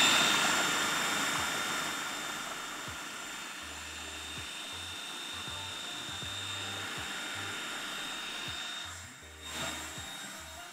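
Electric food processor motor running steadily with a high whine as it whips soft white cheese, whey and oil into a creamy spread. It is loudest at first, settles quieter after a couple of seconds, and drops away near the end.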